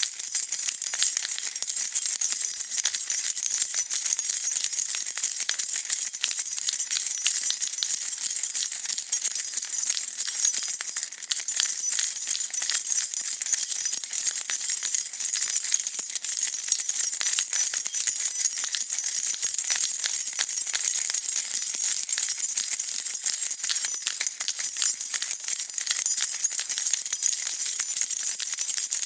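A bunch of metal keys on a key ring being shaken and jingled continuously: a dense, steady stream of small bright clinks and rattles.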